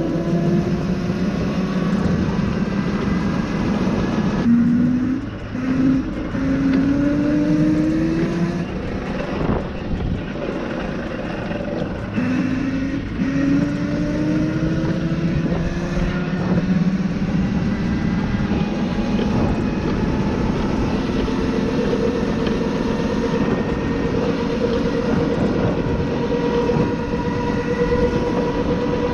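Electric ATV's 1000 W MY1020 brushless motor and chain drive whining under acceleration, rising in pitch twice, then holding a steady higher whine at top speed. Underneath runs a steady rush of road and wind noise.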